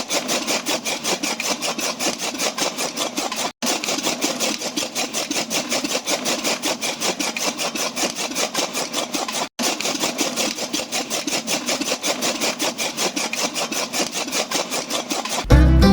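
A small motorised mechanism rasping rhythmically, several strokes a second, breaking off for an instant twice.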